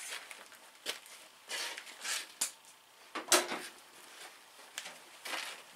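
Irregular clunks, sharp clicks and short bursts of rustling or scraping, as of things being moved and handled.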